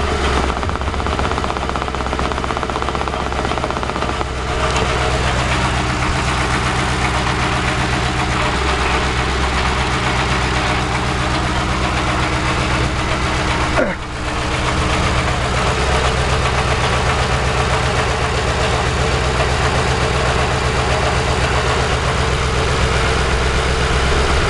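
2006 Ford Crown Victoria Police Interceptor's 4.6-litre V8 idling roughly, the engine shivering, with a steady noise that the owner traces to around the catalytic converters. It gets slightly louder about four seconds in and dips briefly near the middle.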